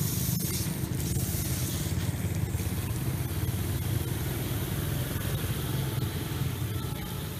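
A steady low engine-like hum, the loudest sound, under the hiss of water spraying from a low-pressure T900 root-zone sprinkler. The hiss is strongest in the first two and a half seconds, and there is a single click about half a second in.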